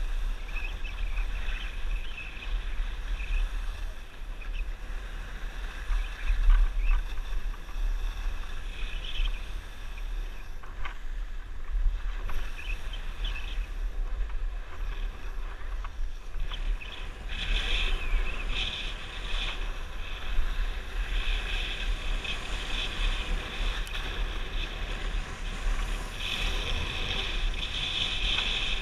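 Wind buffeting the microphone while skiing downhill, with the hiss and scrape of skis sliding over packed snow; the scraping grows louder in the second half.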